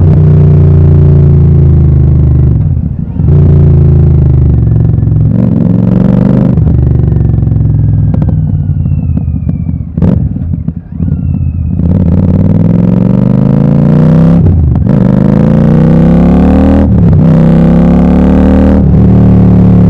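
Royal Enfield Super Meteor 650's 648 cc parallel twin through an open Gursewak exhaust with its dB killers removed, accelerating hard through the gears. The note climbs and drops at each gear change, twice in the first seven seconds. The revs then fall away with a single sharp pop about halfway through, and it pulls up through the gears again with three more shifts.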